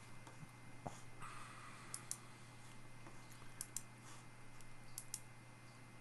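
A few faint, scattered clicks of a computer mouse, over a low steady hum.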